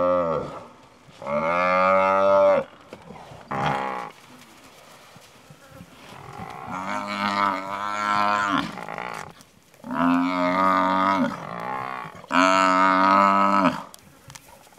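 African buffalo bellowing in distress while lions attack it: about five long, low moaning calls, each a second or more, several dropping in pitch as they fade.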